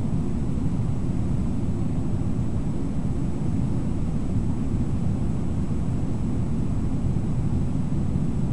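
Steady low rush of a river running over shallow rapids.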